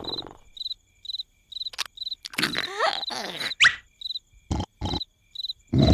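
Crickets chirping steadily, about two short high chirps a second, as night-time ambience. A few short sliding tones and clicks come in the middle, the loudest a quick rising glide about three and a half seconds in.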